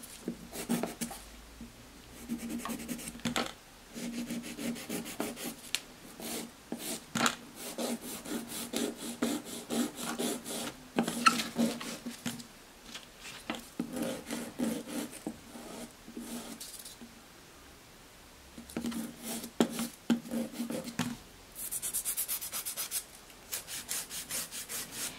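Hand nail file rasping back and forth across artificial full-cover tip nails to shape them, in quick repeated strokes. There is a short pause a little over two-thirds of the way through, then a run of faster strokes near the end.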